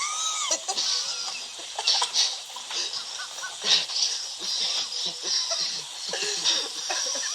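Voices laughing, with high squealing glides.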